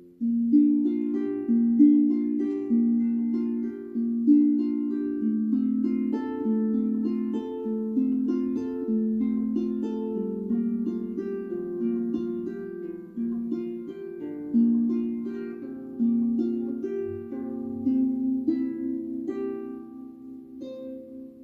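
Celtic harp played solo: a flowing tune of plucked notes that ring into one another, starting again after a short pause and growing quieter near the end as the last notes are left to ring out.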